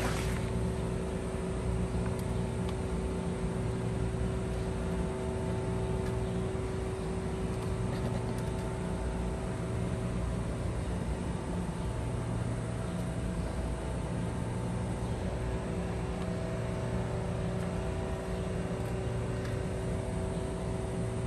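Steady low mechanical hum with a constant mid-pitched tone running through it, unchanging throughout, with a few faint clicks.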